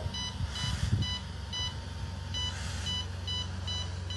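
Bedside medical equipment alarm beeping in runs of short high beeps, over the steady hum of a home ventilator. A soft rush of air about every two seconds is the ventilator delivering breaths through the infant's breathing hose.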